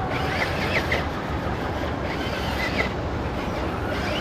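Electric motor and gear drivetrain of a 1/10-scale RC rock crawler running under load on a climb: a steady whir with a few short high whines.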